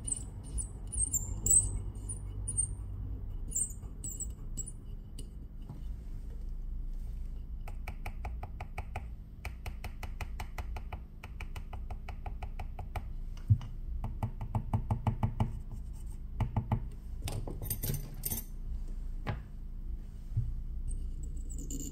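Hands working a metal phone-opening clamp and a syringe: small clicks and scratches, with runs of fast, even ticking in the middle and a few louder knocks near the end.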